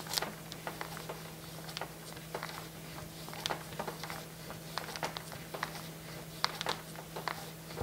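Soft, irregular crinkling and rustling of a plastic two-part polyurethane pouch being drawn back and forth over a newspaper-covered table edge, mixing side A into side B. A faint steady hum lies underneath.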